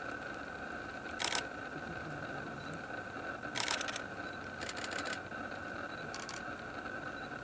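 Camera shutters firing: a single shot about a second in, then three rapid bursts of shutter clicks over the next few seconds. Steady wind noise and a faint steady hum run underneath.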